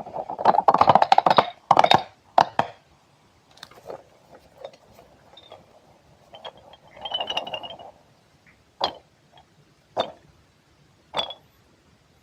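Soft material being squeezed and handled close to the microphone, with crackly squishing in irregular bursts and a few single sticky clicks near the end.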